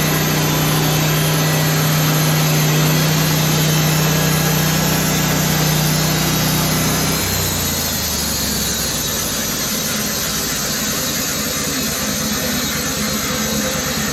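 Band sawmill's engine running steadily, then dropping in pitch about halfway through and settling at a lower, slightly quieter speed.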